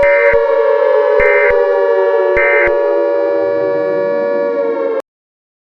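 A siren tone sliding slowly down in pitch, overlaid with three short screeching EAS end-of-message data bursts about a second apart that mark the end of the alert. Everything cuts off abruptly about five seconds in.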